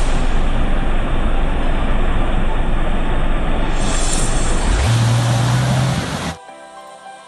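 Off-road 4x4 vehicle driving, its engine running under a loud, dense rushing noise. About five seconds in, a steady low engine drone comes up. About a second later the vehicle sound cuts off suddenly, leaving quiet background music.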